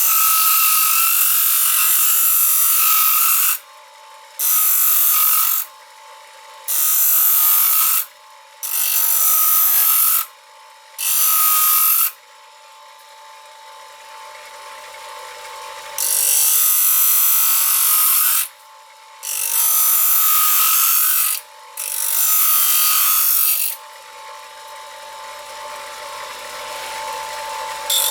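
Bench grinding wheel grinding the steel of a kitchen knife blade in about eight passes of a few seconds each, reshaping the blade to give back a tip it has lost. A steady motor whine carries on between the passes.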